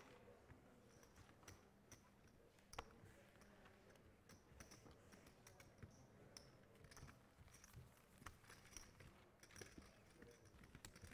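Near silence with faint, scattered clicks of poker chips being handled at the table.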